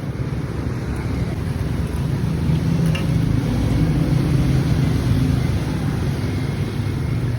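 Steady low engine rumble of motor vehicles running close by on the street, swelling slightly in the middle.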